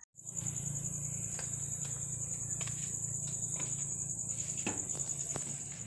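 Crickets chirping in a steady, high, pulsing trill, over a low steady hum, with a few light clicks.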